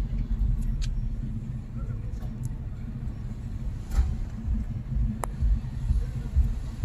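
Low, steady rumble of a car driving in city traffic, heard from inside the cabin, with a few faint clicks.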